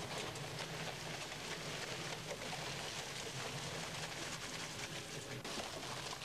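Intimus 16.86 shredder-baler running, its conveyor carrying paper to the cutting rollers: a steady hum with a faint, continuous crackle.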